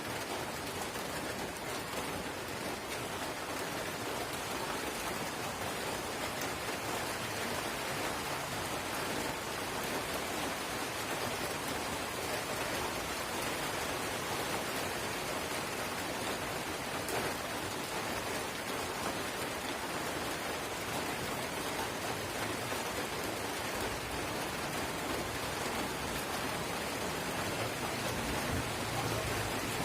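Drizzle falling steadily, an even hiss of light rain.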